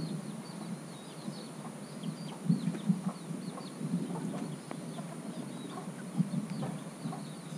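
Many small birds chirping in quick, short falling notes over a steady high hiss, with several louder low bursts, perhaps clucks, scattered among them.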